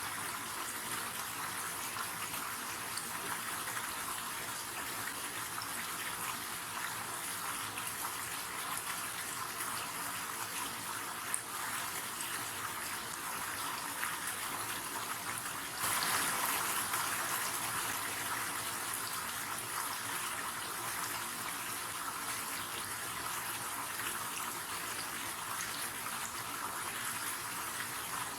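River water flowing steadily, a constant rush with most of its sound in the upper range. A little past halfway it suddenly grows louder, then eases back.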